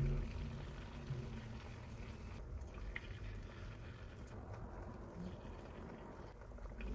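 Batter-coated spinach leaves deep-frying in oil in a pan: a faint, steady sizzle with a few small crackles.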